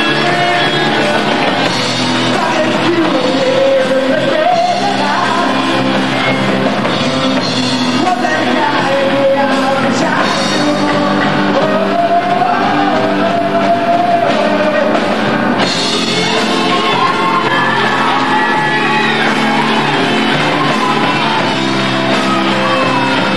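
Amateur rock band playing live: a singer's voice over keyboard, drums, bass and electric guitar, loud and unbroken.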